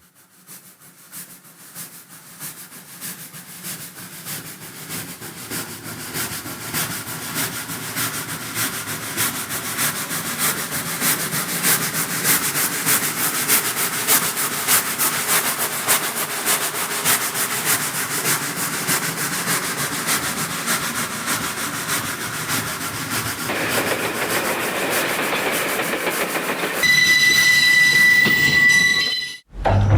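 Train wheels running over rail joints in a steady clickety-clack that grows louder, with a hiss joining near the end. A high, steady train whistle then blows for about two seconds before the sound cuts off abruptly.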